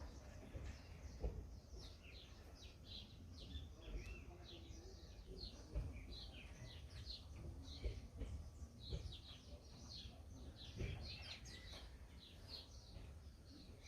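Several small birds chirping, many short, quick, downward-sliding chirps overlapping one another, over a low rumble with a few soft knocks.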